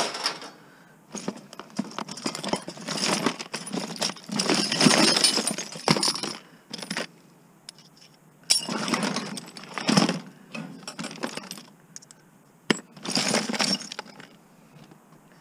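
Small metal scrap pieces (screws, bolts and fittings) clinking and rattling as gloved hands rummage through them in a plastic tote. It comes in three bouts, the longest in the first half, with quieter gaps between.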